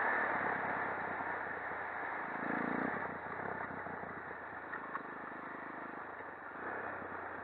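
Shineray 250 quad ATV's single-cylinder engine running while riding, under a steady rush of wind and tyre noise. The engine picks up briefly about two and a half seconds in and again near the end.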